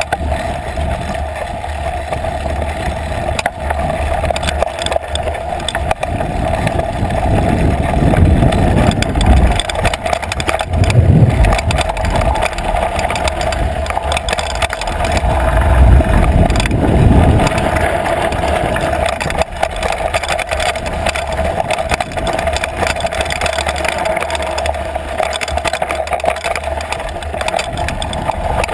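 Trek Fuel EX8 full-suspension mountain bike riding over a rough, rocky dirt singletrack, heard through a camera on the seat post: steady tyre noise on dirt with frame and chain rattle. Louder low rumbling comes about eight to twelve seconds in and again around sixteen to seventeen seconds.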